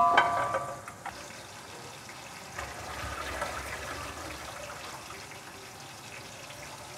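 Sliced onions sizzling steadily as they fry in ghee in an aluminium pot. A brief ringing tone fades out in the first second.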